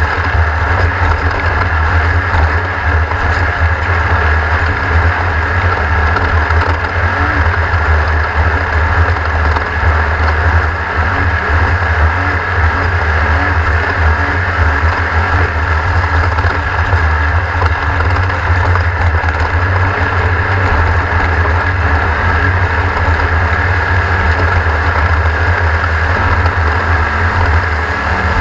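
A racing engine running steadily and loudly at speed, with no breaks or big changes in pitch.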